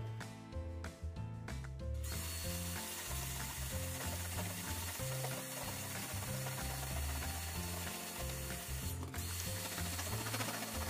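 Vacuum cleaner running, its brush nozzle drawn over the plastic intake grille of an air purifier to suck dust off the outside of the filter. It starts about two seconds in and breaks off briefly near the end, over background music.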